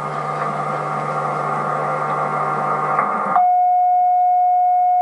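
A dense, droning mix of static-like noise and several steady tones keeps getting louder, then cuts off abruptly about three and a half seconds in. A single loud, steady emergency-alert tone follows, the weather radio alert tone of a mock EAS tornado warning.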